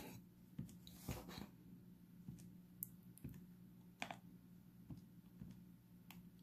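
Keys of a Casio fx-991ES PLUS C scientific calculator being pressed: faint, irregular clicks while a calculation is keyed in.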